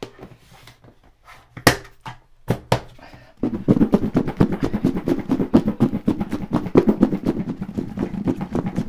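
Cubed eggplant and spice mix being shaken together to coat the pieces: a few sharp clicks, then from about three and a half seconds in a fast, continuous rattling and thudding of the cubes.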